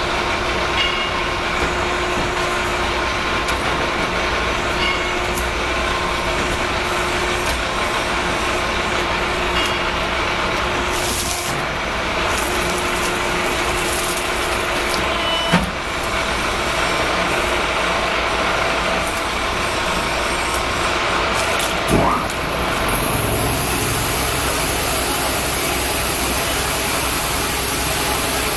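Hydraulic power unit of an MW 808II motor-wrecking machine running steadily, an electric motor driving its hydraulic pump while the machine works a motor stator. It gives one sharp knock about halfway through, then a brief rising whine a little later.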